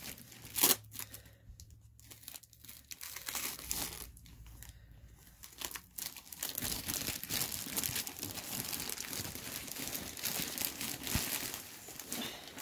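Plastic mailer bag and packing tape being handled and pulled off a skein of yarn: scattered crackles at first, then steady crinkling from about halfway through.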